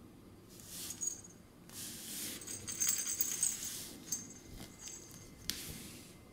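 A plush toy wiggled and rubbed against a wooden floor, rustling in several bursts, with a light metallic jingle in short bursts, loudest about three seconds in. A sharp click about five and a half seconds in.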